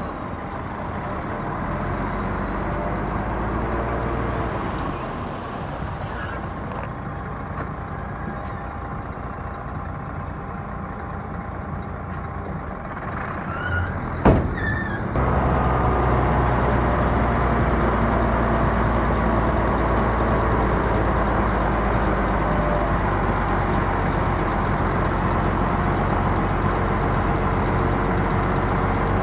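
Diesel engines of heavy earthmoving machinery running steadily, with a faint high whine. A single sharp bang comes about halfway through, and soon after the engine sound steps up louder and holds steady.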